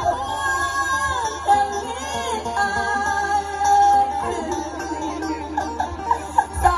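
Live Isan mor lam concert music from a large outdoor stage: a singer holds long, bending, ornamented notes over the band.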